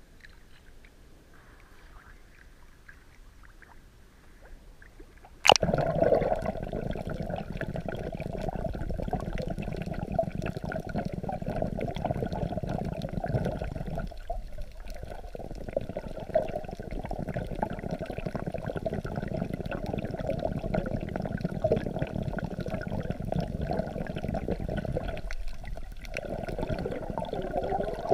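Sea water heard through a camera held at the surface: a few seconds of faint lapping, then about five seconds in the camera goes under and a loud, muffled underwater rush and sloshing from the waves takes over. This rush briefly drops away twice.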